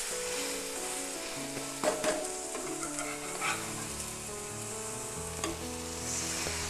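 Egg-soaked bread frying in ghee on a tawa, sizzling steadily, with a few sharp clicks about two and three and a half seconds in, over background music.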